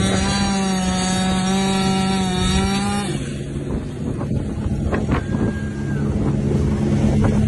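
Two-stroke chainsaw running at a steady high pitch while cutting, for about three seconds. It then eases off and runs rougher and quieter, with a few short sharp cracks.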